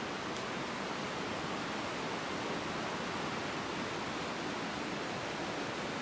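A steady, even rushing noise with no distinct sounds standing out of it.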